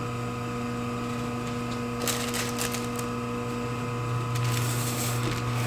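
Electric deli meat slicer (Beswood 250) running with a steady motor hum while ham is sliced. Bursts of scraping and rustle come from about two seconds in as the ham is pushed through the spinning blade and the slices drop onto the deli paper.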